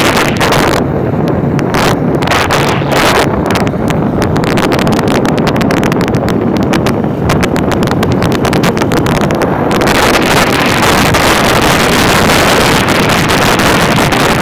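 Wind buffeting the microphone of a moving vehicle, over the steady noise of its running engine. The rushing thins out about a second in and comes back strong from about ten seconds in.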